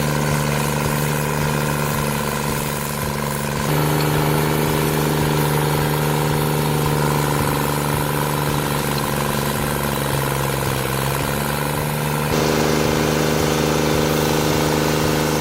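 Stump grinder's engine running steadily at a constant speed, without cutting into wood. Its even running note shifts a little about four seconds in and again near the end.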